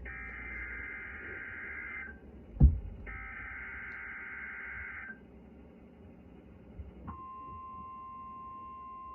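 Weather radio alert signalling: two bursts of SAME digital header data, buzzy screeches about two seconds each and a second apart, with a sharp thump between them. About seven seconds in, NOAA Weather Radio's steady single-pitch warning alarm tone starts, signalling the weekly test of the alert system.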